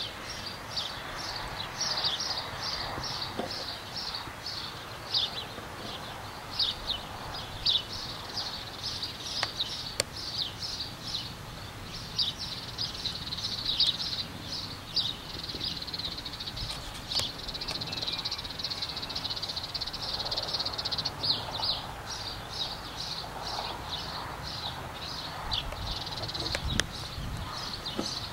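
Small birds chirping: a steady run of short, high, quick downward chirps, about two to three a second, over a faint low background hum.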